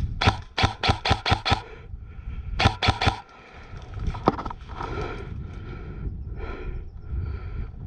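Airsoft gun firing a rapid string of single shots: about six in a second and a half, three more a second later and one more shortly after. Softer scraping and rustling follow in the second half.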